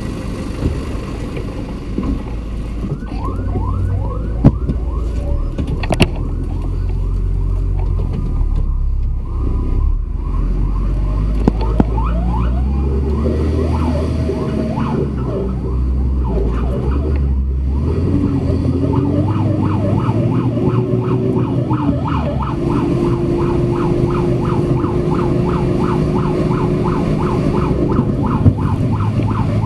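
Fire truck siren sounding in fast repeating yelps, heard from inside the cab over the truck's engine, whose pitch rises and falls as it pulls away. Two sharp knocks a few seconds in, the cab door being shut.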